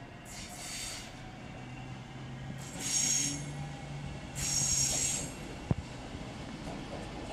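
Electric passenger train rolling past on the station tracks, its wheels squealing high-pitched on the curves in two spells, about three and five seconds in, over a steady low hum. A single sharp click comes near the end.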